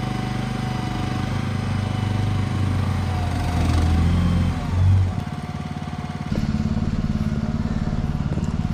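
Shed mule's engine working under load while the machine is stuck in mud and not moving. The engine swells from about two seconds in, peaks near five seconds, drops off abruptly, then settles back into a steady run.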